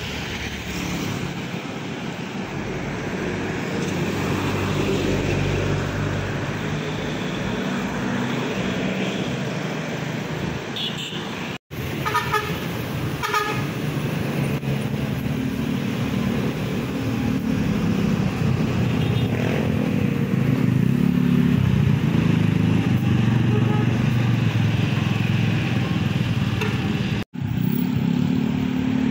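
Road traffic passing close by: bus, truck and car engines running as they drive past, growing louder in the second half. A few short horn toots come shortly after a brief dropout about twelve seconds in.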